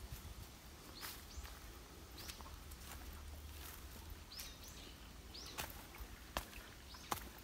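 Footsteps going down leaf-strewn steps, a sharp tap with each step, louder in the second half. Short high chirping bird calls come in now and then, four or five of them.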